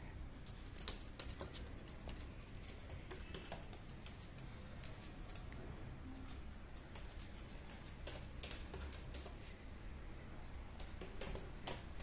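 Light, irregular clicking and tapping of an Indian ringneck parakeet's claws on a hard tabletop as it walks about, faint and scattered with no steady rhythm.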